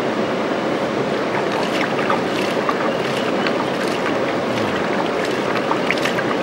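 Steady rushing of a shallow rocky river, with small splashes and drips as a hand scoops water over a bare foot, starting about a second and a half in.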